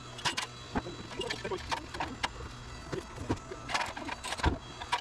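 Hand pruning shears snipping Kaizuka juniper branches: a string of irregular sharp clicks and snips.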